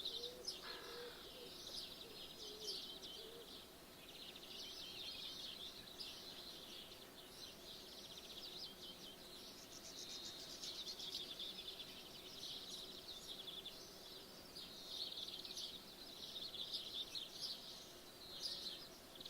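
Several songbirds singing at once in a dense morning chorus of high chirps and rapid trills, with a low cooing call in the first few seconds.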